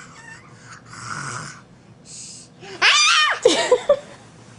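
A toddler's pretend snoring: three short, breathy, wheezy snores, then a loud high-pitched vocal squeal with rising and falling pitch about three seconds in.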